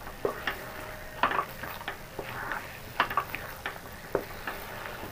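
Wooden spatula stirring a thick, sticky mixture of sago pearls and melted sugar in a non-stick pan, with irregular scrapes and soft knocks against the pan.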